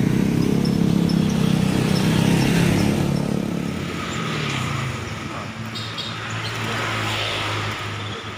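A motor vehicle engine running close by, loudest in the first three seconds, then dropping to a steady low hum of road traffic.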